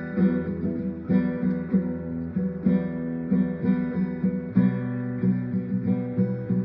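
Acoustic guitar music, strummed chords in a steady rhythm with a chord change about four and a half seconds in.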